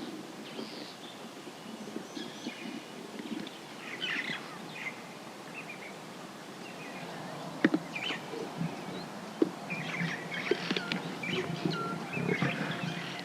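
Bush ambience with several birds chirping and calling, over a low rumble. A few sharp clicks come in the middle.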